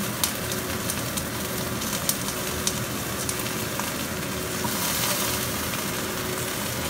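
Chicken thigh steak frying in hot oil in a pan: a steady sizzle with scattered sharp pops of spattering fat. The sizzle grows brighter about two-thirds of the way through.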